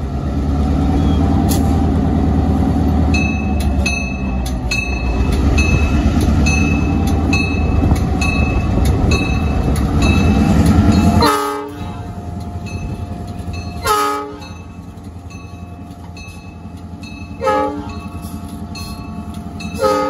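EMD diesel locomotive running loud as it pulls a freight train past, its engine rumble dropping off sharply about eleven seconds in. Short horn blasts follow, four of them a few seconds apart.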